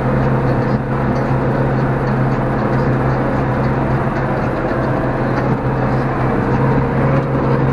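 Valtra tractor's diesel engine running steadily at working speed, heard from inside the cab with a low, even drone and a rough rattle over it as the tractor drives over rough ground.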